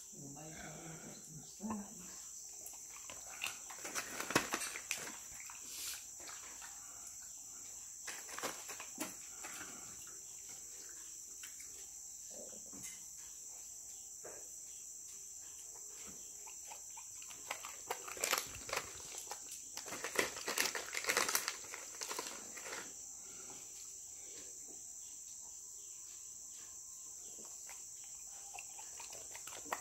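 A dog crunching keropok crackers, in bursts of crackly chewing a few seconds in and again past the middle, over a steady high drone of crickets.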